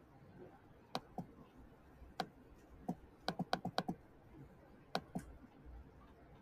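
Sharp plastic clicks of computer input while keys are pressed on a TI-84 calculator emulator. There is a pair about a second in, then single clicks, then a quick run of about six in just over half a second as the cursor is stepped along with the arrow key, and another pair near the end.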